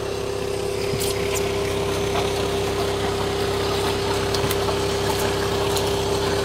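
A motor running with a steady hum: one constant mid-pitched tone over a low drone, with a few faint clicks.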